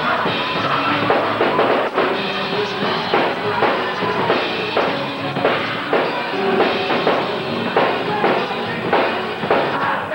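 Music led by a drum kit keeping a steady beat, with hits a little more than once a second over sustained pitched instruments.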